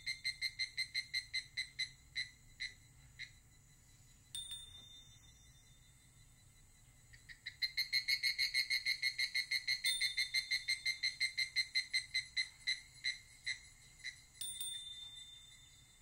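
Recording played back on KEF Q750 floorstanding speakers: a high chirping tone pulsing about five times a second, fading and returning, with three struck chime-like notes ringing out.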